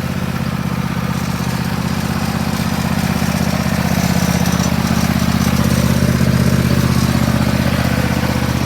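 A small engine idling steadily, getting slightly louder in the middle.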